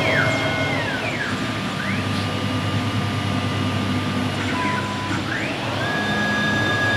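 CIMTECH 1325 CNC router's axis drive motors whining as the gantry and spindle head travel. The pitch glides up and down as each move speeds up and slows down, over a steady machine hum, with a higher steady tone setting in near the end.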